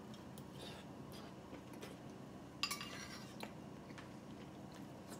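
Metal spoon clinking sharply against a ceramic bowl about two and a half seconds in, with a smaller tick just after and faint small clicks around it.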